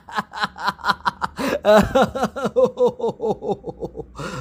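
A man's voice laughing in a long, quick run of 'ha' pulses, about five a second, ending in a breath.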